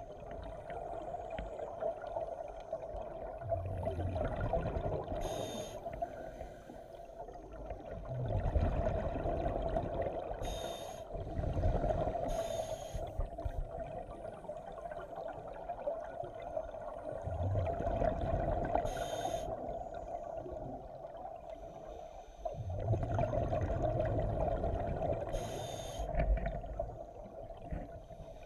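Scuba breathing underwater through an open-circuit regulator: a short hiss on each inhale and a low rumble of exhaled bubbles, repeating every five to seven seconds, over a steady hum.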